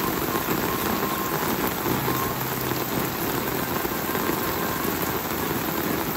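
Rain falling steadily, a dense even hiss of drops.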